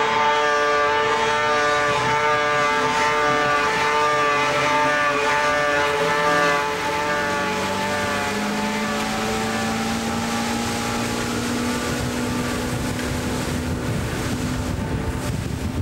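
Engines running hard at high revs as a snowmobile skims across open water with personal watercraft alongside: a steady whine that drops a little about six and a half seconds in, after which a lower tone slowly rises.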